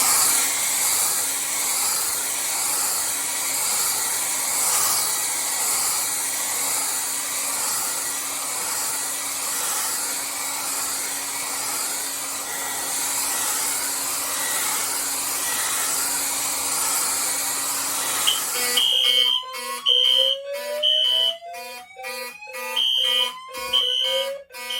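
Hair dryer blowing hot air onto a Silent Knight rate-of-rise heat detector, a steady rush of air with a faint hum. About 18 seconds in, the detector trips and the fire alarm goes off suddenly: rising whoop sweeps over short repeated beeps.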